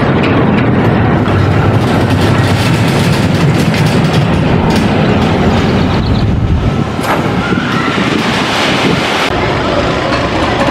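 Mine-train roller coaster running along its steel track, a steady loud rumble and rattle of the train's wheels. The sound drops and changes about seven seconds in.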